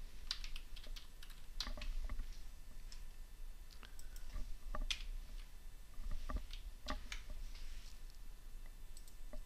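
Keystrokes on a computer keyboard: scattered, irregular taps and clicks of someone typing slowly, over a faint low hum.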